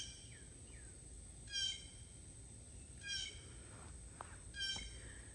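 A bird giving four short, pitched calls about a second and a half apart, begging for peanuts.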